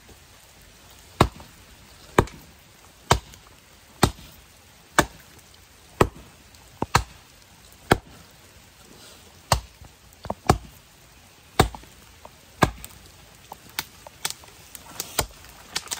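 A Hults Bruk 24-inch axe chopping into a standing sapling trunk. About a dozen strong, even strokes come roughly one a second, then lighter, quicker knocks follow over the last few seconds as the notch deepens.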